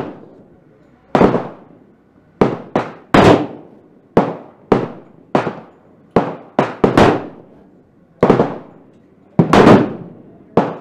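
A string of 10mm Auto pistol shots from a Glock 30 fitted with a Storm Lake 10mm conversion barrel, sharp loud cracks each with a short echoing tail. They come unevenly, about a second apart or less, some in quick pairs.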